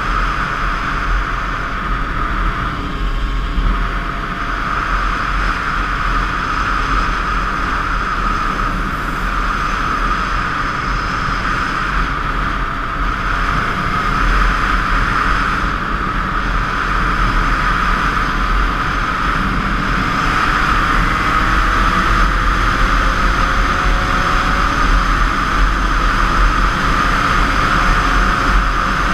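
Steady wind rush and a 50 cc motorcycle engine, heard from a helmet-mounted camera while riding. In the second half the engine note rises and the sound gets a little louder as the bike speeds up.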